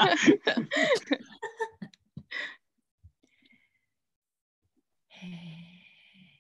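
A woman's speech trailing off, a short breath, then a pause and a brief sighing hum near the end.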